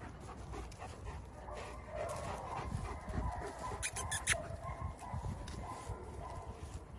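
Dog whining, with drawn-out high whines repeating from about a second and a half in until near the end. A quick cluster of sharp clicks comes around four seconds in.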